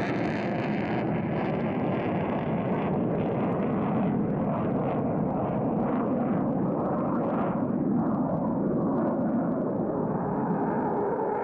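Su-24MR jet's twin AL-21F-3 turbojets running loud in afterburner as the aircraft climbs away, a rumbling roar with crackle through the middle. The hiss at the top fades as the jet recedes.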